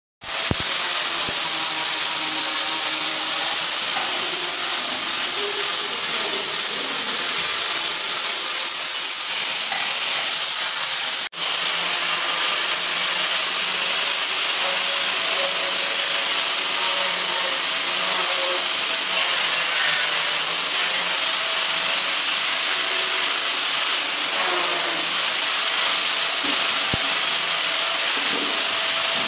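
Handheld electric power tool running steadily on the marble vanity work, a continuous high hiss-like noise that cuts out for an instant about eleven seconds in.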